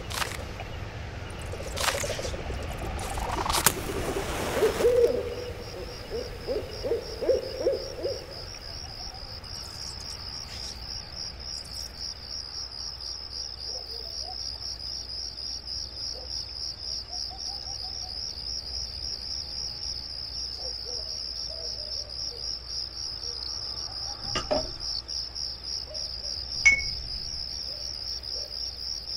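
Crickets trilling continuously in a steady high chirr, with a low hooting call for a few seconds near the start and a couple of light clicks near the end.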